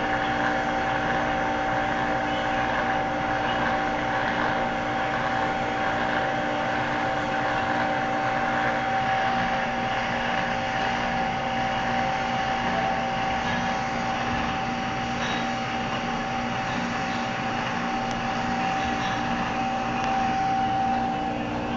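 Electric blender motor running steadily with a constant whine and hum, cutting off near the end.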